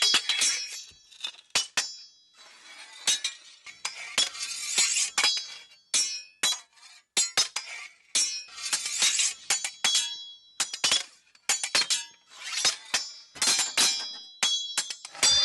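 Sword fight sound effect: steel blades clashing in quick, irregular runs of sharp metallic strikes, many of them ringing briefly at a high pitch, with blades scraping against each other in between.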